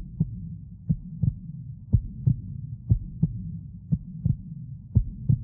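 Heartbeat sound effect: paired lub-dub thumps, about one beat a second, over a low steady drone.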